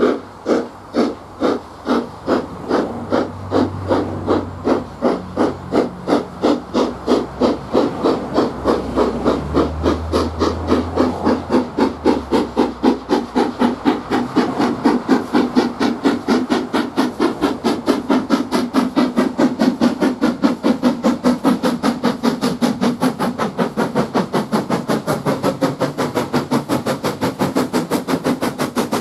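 Steam locomotive No. 53808, a Somerset & Dorset 7F 2-8-0, drawing closer with a steady run of sharp exhaust beats. The beats quicken from about two a second to about four a second as it nears, with a hiss of steam behind them.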